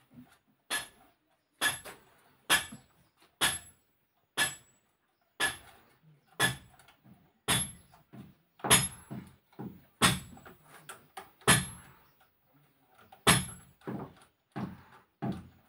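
Hammer blows on metal, about one a second, each with a short metallic ring. There is a brief pause past the middle, then the blows come a little faster near the end.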